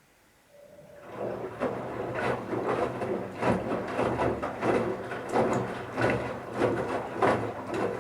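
Bauknecht Super Eco 7615 front-loading washing machine starting its drum turning again after a pause in the wash: a low motor hum under irregular swishing and thudding about twice a second as the wet towels tumble and slosh in the drum.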